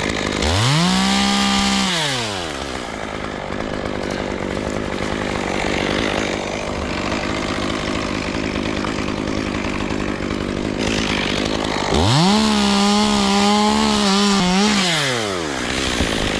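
Two-stroke chainsaw throttled up to full speed twice, once about half a second in and again about twelve seconds in. Each time it holds at a high steady pitch for one to three seconds, then drops back to idle.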